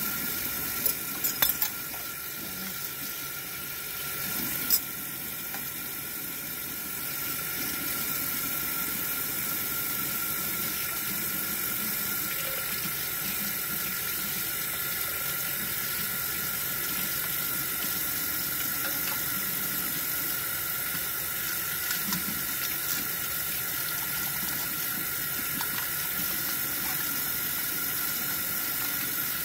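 Kitchen tap running steadily into a sink while a small plastic water bottle is rinsed under the stream. A few sharp knocks come in the first five seconds.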